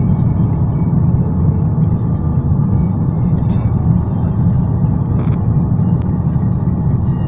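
Steady low rumble of a vehicle in motion, even and unbroken.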